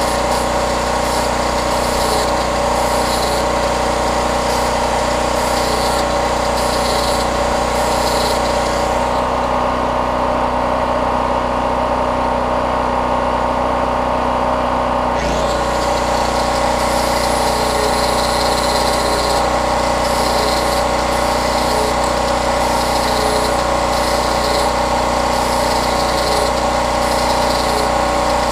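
Electric angle grinder grinding steel chainsaw felling dogs in short repeated passes, over the steady running of a Champion portable generator's engine. The grinding stops for several seconds midway, then starts again.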